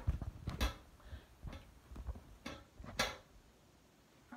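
Handling noise from a phone camera being carried and set down: a few scattered knocks and clicks with low thuds, the loudest near the start and about three seconds in.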